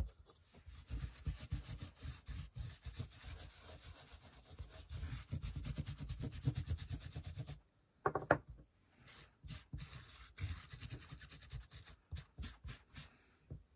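Quick back-and-forth scrubbing strokes of a tool rubbed over dampened paper laid on a lace doily, pressing the lace pattern into the paper. The rubbing stops about seven and a half seconds in, and a few light knocks and handling sounds follow.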